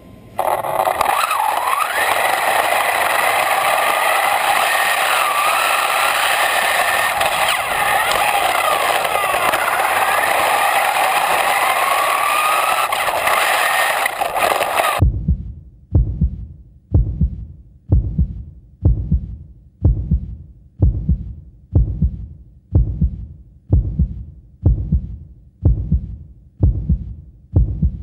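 A radio-controlled buggy's motor whining loudly, its pitch rising and falling as the car speeds up and slows. About halfway through the sound cuts off abruptly and gives way to steady low thuds about once a second, like a heartbeat.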